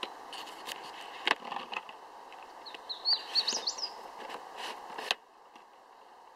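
A songbird singing one short phrase of quick rising and falling whistles about three seconds in, over the steady sound of the woods. A few sharp knocks of the handheld camera being handled come through, the last just after five seconds, where the sound drops away suddenly.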